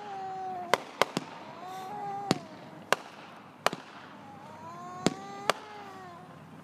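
Consumer aerial fireworks bursting overhead: about eight sharp bangs at irregular spacing. Between the bangs come several drawn-out, wavering pitched sounds.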